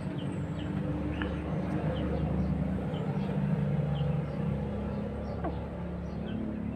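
A steady low engine hum, with faint short high chirps scattered through it about once a second.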